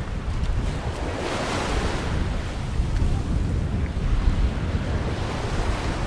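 Sea surf washing onto a sandy beach, swelling about a second in, with wind buffeting the microphone as a steady low rumble.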